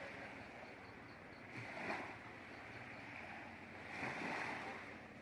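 Small sea waves washing in against a rocky shore, swelling twice, with a steady hiss of water between.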